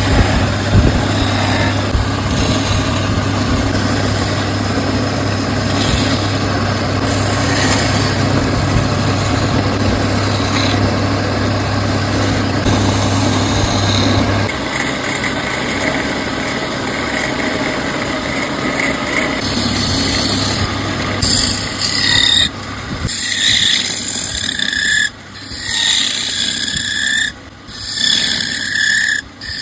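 Wood lathe turning a wooden bowl, its motor humming steadily while a tool scrapes the spinning wood. The hum drops away about halfway through, and in the last third the scraping comes in separate high-pitched strokes with short gaps between them.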